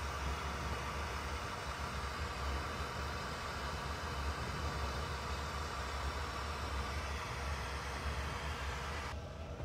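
Glassworking torch flames burning steadily: a continuous hiss over a low steady hum. The high part of the hiss thins out near the end.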